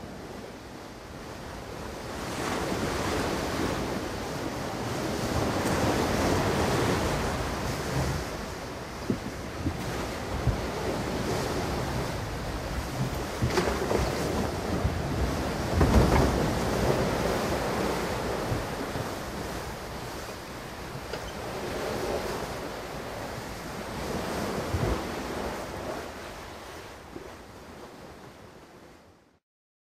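Ocean waves and wind: a steady rushing wash that swells and eases every few seconds, with a few short thumps and a louder surge about sixteen seconds in.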